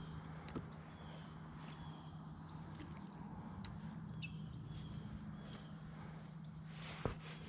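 Faint steady chirring of crickets over a low steady hum, with a short bird chirp about four seconds in and a few light clicks.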